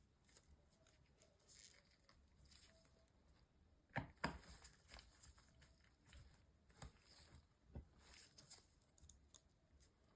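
Faint handling sounds of hands working on a laptop: light rustles and small clicks, with two sharper clicks about four seconds in.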